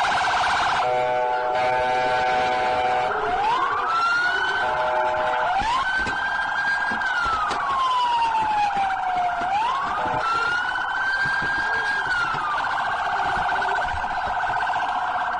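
Police car sirens sounding together: a rapid warbling yelp throughout, with a slow wail that rises and falls several times over it. About a second in, a steady multi-tone blast joins for a couple of seconds.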